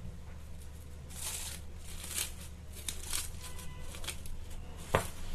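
Plastic cling wrap crinkling in irregular rustles as it is peeled off a bowl of dough, with one sharp click near the end.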